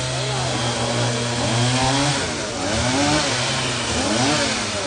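Chainsaw engine running steadily, then its pitch rising and falling several times from about two seconds in as it is revved through the wood of a fallen tree.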